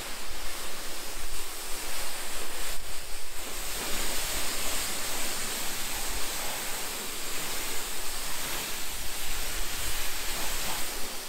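Pressure washer water jet hissing steadily against a car's rear bodywork and the ground, rinsing off spray-on sealant, easing briefly about three seconds in.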